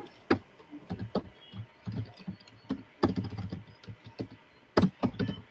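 Computer keyboard typing: a run of irregular key clicks, with a couple of louder clicks near the end.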